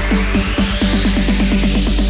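Electronic dance music build-up: a rising sweep climbs steadily over repeated notes that come faster and faster.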